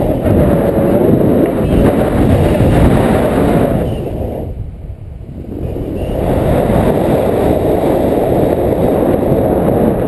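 Wind buffeting an action camera's microphone in flight under a tandem paraglider: a loud, rough rush of air. It drops away for about a second halfway through, then comes back.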